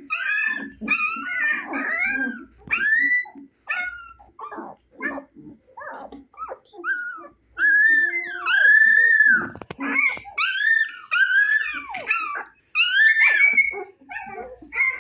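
Husky puppies about 25 days old crying in a rapid string of high-pitched whines and yelps, each cry rising and falling in pitch, with a longer drawn-out howl-like cry near the middle.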